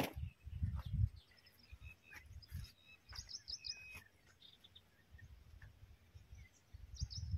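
Small birds chirping in quick runs of high notes, busiest about three seconds in, over a quiet outdoor background. A sharp click comes at the very start, and a low fluctuating rumble is heard in the first second and again near the end.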